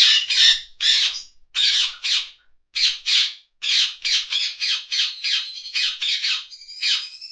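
Rose-ringed parakeet shrieking: a rapid run of short, harsh calls, about two a second, with a couple of longer, clearer whistled calls near the end.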